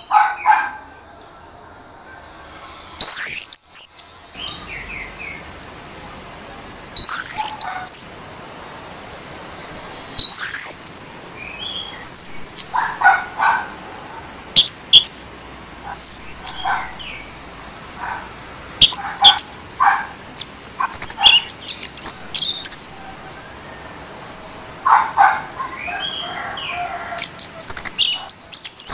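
Orange-headed thrush singing in a harsh, coarse voice: loud phrases every few seconds, many opening with quick upward-sweeping whistles, with short pauses between them.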